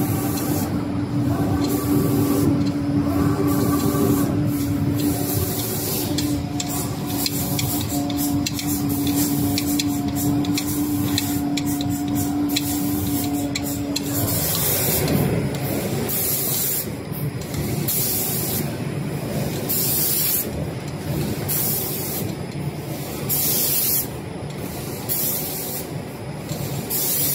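Automatic spray-painting machine: compressed-air spray guns hissing in repeated on-off bursts as the gun head traverses the panels. A steady machine hum runs underneath and stops about halfway through.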